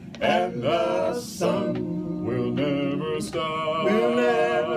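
Male gospel trio singing a cappella in close harmony, holding long notes between short breaks.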